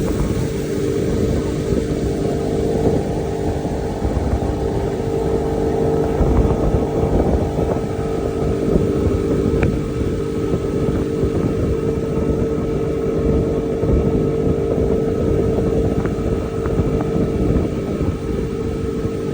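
Mercury outboard motor running steadily under way, a constant hum over a rough low rumble of wind and water.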